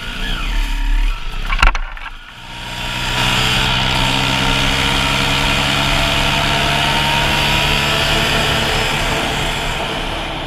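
KTM 300 two-stroke enduro bike running while pushed through brush, with branches knocking against it near the start. Then a steady engine note at constant speed on a paved road, with wind rushing over the bike.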